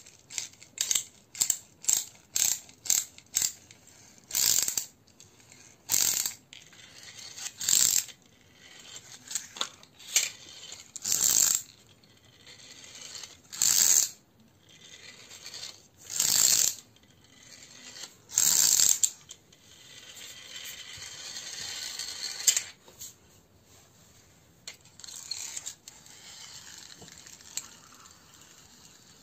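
Geared wheel motor of a small plastic toy car whirring in strokes as a hand pushes it back and forth across a concrete floor. The strokes come quickly at first, then slower and longer, with one longer, fainter whir a little past the middle.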